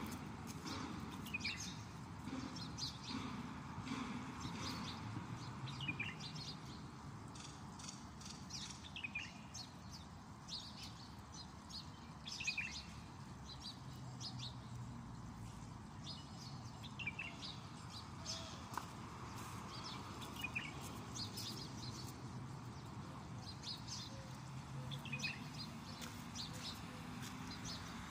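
Birds chirping: short, high calls, some sliding down in pitch, repeating every second or two over a low, steady background rumble.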